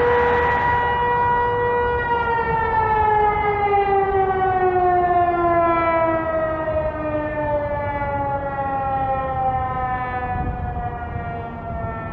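Federal Signal Eclipse 8 electromechanical outdoor warning siren holding its steady tone, then winding down about two seconds in, its pitch falling slowly and steadily as the rotor slows.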